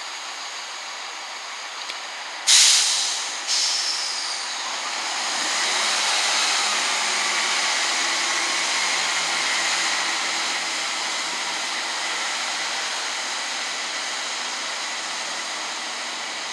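A sudden sharp hiss of air about two and a half seconds in, and a second shorter one a second later, then a Class 165 Turbo diesel multiple unit's engines running up as it pulls away, a steady engine drone with a faint whine rising and falling over it.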